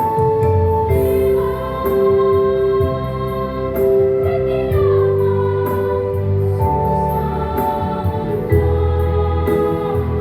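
School choir singing in several parts, holding sustained chords that change every few seconds.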